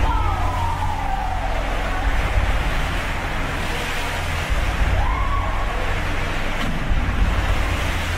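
Seawater surging and spraying across a cruise ship's pool deck in a storm: a loud, steady rush with a deep rumble. A long gliding tone falls at the start and another rises about five seconds in.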